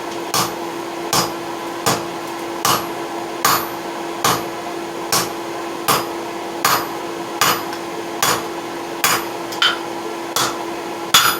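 Steady, evenly paced hammer blows on steel forging dies, about one every 0.8 seconds, as a nail header blank is forged. A steady hum runs underneath.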